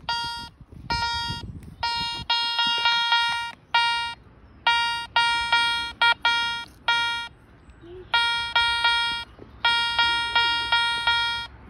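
Metal detector sounding a target as its search coil is swept back and forth over it: repeated beeps at one high, unchanging pitch, each under a second long, coming in quick runs. The strong, repeatable signal is typical of a high-conductivity metal target.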